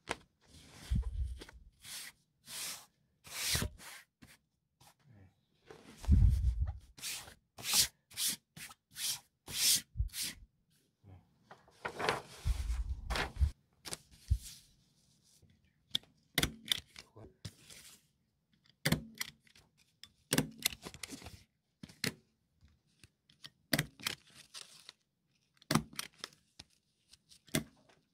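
Kraft paper and cloth lining handled on a cutting mat: crinkling and rustling paper with a few soft thuds as the sheet is laid and smoothed down. In the second half come quicker, lighter taps and clicks.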